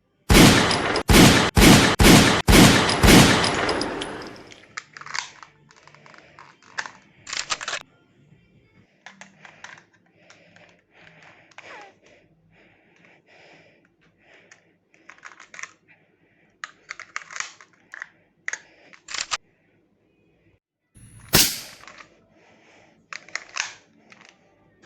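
An airsoft Glock 17 pistol fires about six quick shots, roughly two a second, each a sharp crack with a fading tail. Then come small clicks and rattles of the pistol being handled, and one more loud shot near the end.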